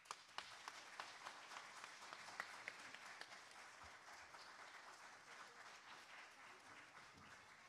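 Fairly faint audience applause that starts suddenly, with a few sharp, distinct claps at first, then settles into a steady patter and dies away near the end.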